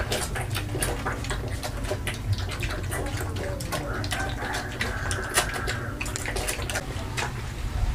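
Several piglets slurping and lapping liquid feed from a round metal basin, a dense run of wet smacks and clicks.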